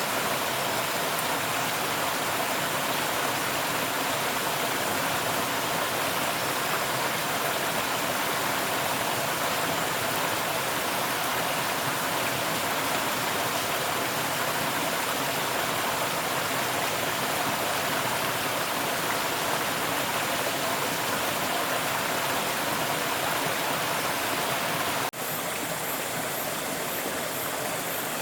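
Steady rushing of flowing water, like a stream. About 25 seconds in the sound breaks off sharply and resumes a little quieter.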